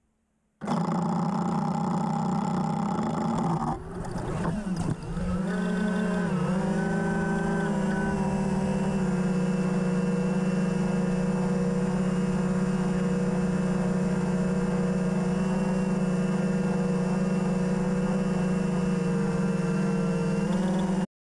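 An FPV quadcopter's four Hyperlite 2206 2300kv brushless motors and three-blade 5-inch props buzzing in a steady, many-toned whine, heard from the onboard camera. About four seconds in the pitch and level dip and swoop, then settle back into a steady buzz that cuts off suddenly near the end.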